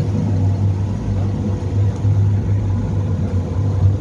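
Speedboat's outboard engines running with a steady low drone.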